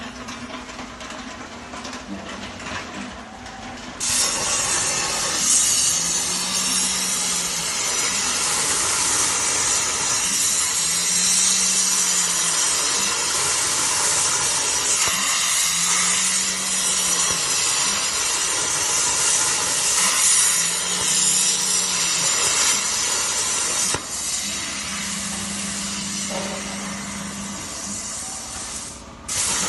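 CNC plasma cutter's torch hissing as it cuts a square metal tube. The hiss starts suddenly about four seconds in and cuts off just before the end. Underneath it a low hum swells and fades five times as the rotary chuck turns the tube.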